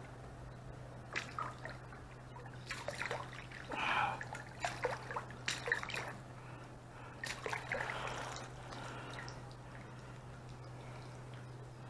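Light splashing and dripping of shallow water around a white crappie held by the lip in the water, in scattered short bursts that die away after about nine seconds.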